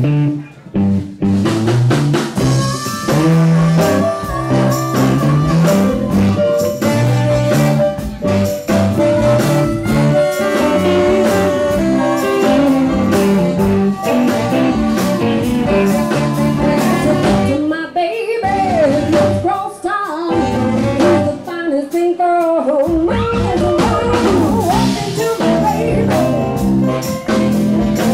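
Live blues band playing: electric guitar, bass and drum kit, with a harmonica carrying a lead line. The rhythm section drops out briefly a couple of times in the second half while the lead carries on.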